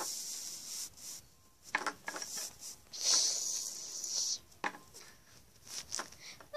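Small plastic toy figurines being handled and moved about on a hard surface: a few light knocks and clicks, and a short rubbing hiss about three seconds in.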